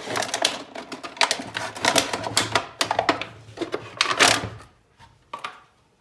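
Knife cutting through the thin plastic of a large water jug, the plastic crackling and clicking in quick, uneven strokes as the top is cut away. The sound stops about five seconds in, with one last snap just after.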